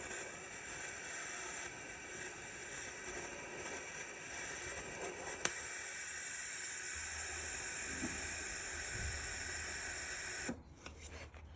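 Electric welder running steadily with a constant crackling hiss, building new studs onto the stumps of snapped exhaust-manifold studs, with one sharp click about halfway; it cuts off suddenly near the end.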